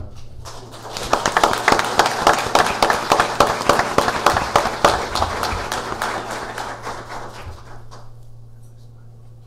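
Audience applauding: the clapping builds up about half a second in, is loudest for a few seconds, then dies away by about eight seconds.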